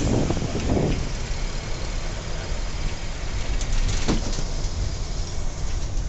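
Bus running on the road: a steady low engine rumble with road noise, and a single knock about four seconds in.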